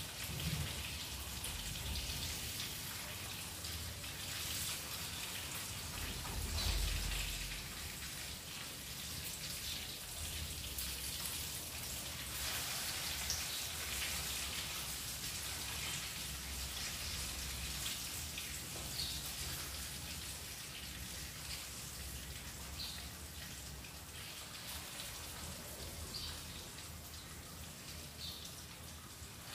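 Salmon fillet sizzling in hot oil in a frying pan: a steady hiss dotted with small crackles and pops.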